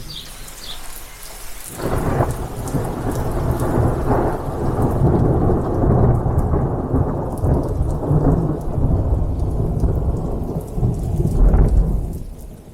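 Thunder from an overhead thunderstorm, a long rolling rumble that builds about two seconds in and carries on for some ten seconds, swelling once more near the end, with rain falling.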